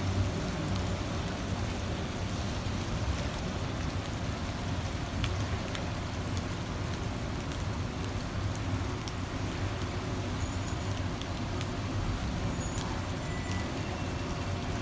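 Steady traffic noise on a slushy street: car engines running with a constant low hum and an even hiss.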